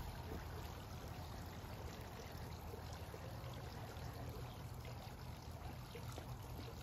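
Garden fountain's water running and splashing steadily, faint.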